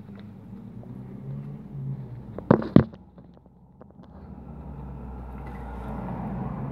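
Inside a car's cabin, two sharp knocks about two and a half seconds in sound over a low, steady hum. A rushing noise swells over the last couple of seconds.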